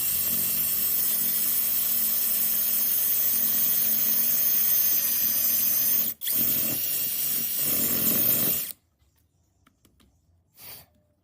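Electric drill running with a steady whining motor while drilling and widening a hole with an 8 mm bit. It cuts out for an instant about six seconds in, runs again, then stops abruptly near the end, leaving quiet with one faint short noise.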